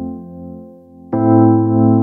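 Calm background music of held chords: one chord fades away and a new chord comes in about a second in.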